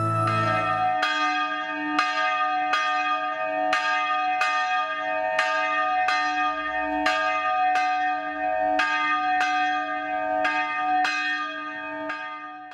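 A single church bell tolling steadily, struck a little faster than once a second, with the ring of each stroke carrying on into the next; it cuts off suddenly at the end.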